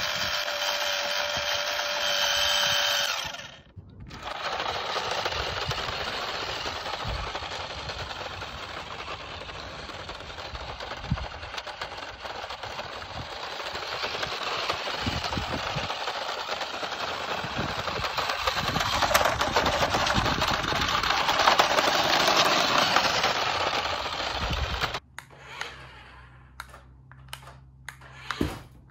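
Small electric motor of a toy remote-control Toyota Hilux pickup whining at a steady pitch with its wheels spinning freely. After a short break the truck drives over gravel: motor whine under a loud crunching hiss of tyres on stones, swelling and fading as it moves. About 25 seconds in the sound drops to a faint low hum with a few clicks.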